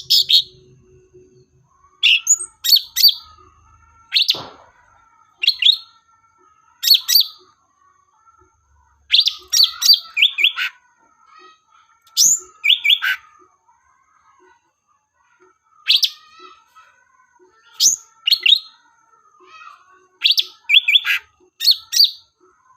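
Bird-lure recording of a 'cucak ranti' songbird call: short bursts of quick, sharp, high chirps repeated every second or two with brief pauses between them, over a faint steady lower warble.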